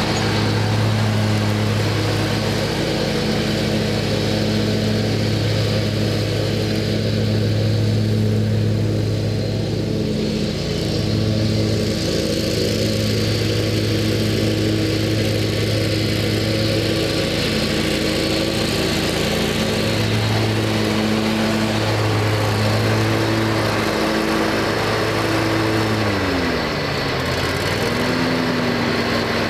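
The 20 hp Kohler Command engine of a 2005 Exmark Turf Tracer zero-turn mower runs steadily while still cold and not yet warmed up. About 26 seconds in, its pitch falls smoothly to a lower engine speed and holds there.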